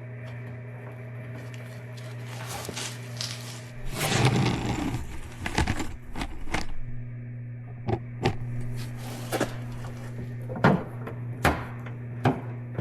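Hand work on a car's rear bumper being fitted into place: a scraping, rustling stretch about four seconds in, then a string of separate sharp knocks and clicks, over a steady low hum.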